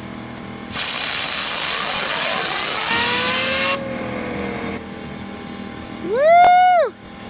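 Compressed air hissing from an air-hose blow gun onto a fidget spinner for about three seconds, the spinner's whine rising in pitch as it spins up, then fading after the air stops. Near the end, a short loud tone sweeps up, holds and drops.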